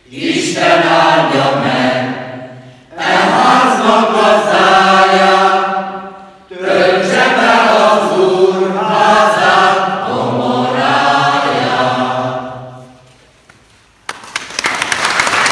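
Mixed choir of men and women singing in three long phrases, the final chord dying away about thirteen seconds in. Applause breaks out near the end.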